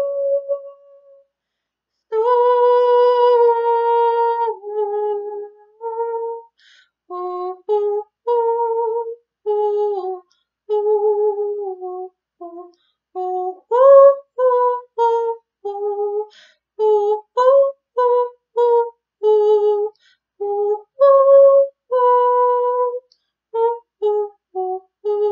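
A woman's voice singing wordless light-language tones: a long held note, then a string of short notes that step up and down in pitch, with short breaks between them.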